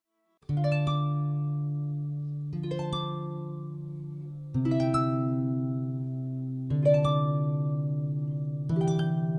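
Harp music: a slow series of plucked chords, a new chord about every two seconds, each ringing on as it fades. It begins about half a second in.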